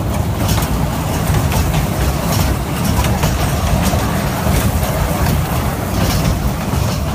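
Small Christmas amusement-train ride running along its track, heard from aboard: a steady low rumble with irregular clicks and rattles.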